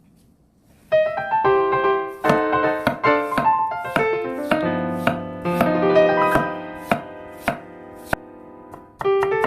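Kitchen knife chopping on a cutting board, about three quick strokes a second, as potato is cut into thin strips. Light piano background music starts about a second in.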